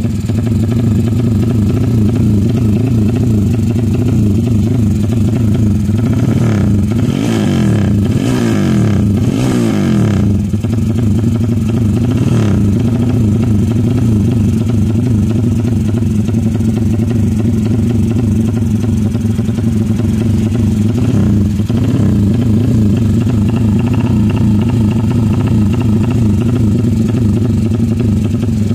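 Motorcycle engine running steadily, revved up and down a few times about seven to ten seconds in, and briefly again later.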